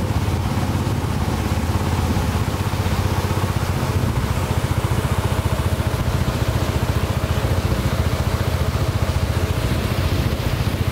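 Engine of a small boat running steadily under way: a low drone with a fast, even pulse.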